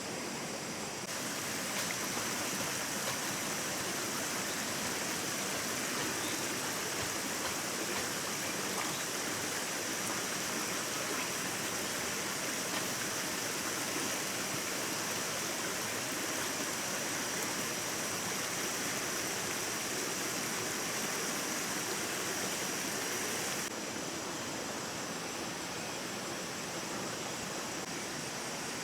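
Stream water running: a steady, dense rush with a thin high tone above it. It steps up abruptly about a second in and drops back abruptly near the end.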